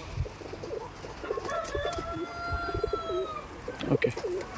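Pigeons cooing repeatedly in an aviary. Over the cooing, a long, arched, drawn-out call from another bird runs from about a second and a half in to past the middle.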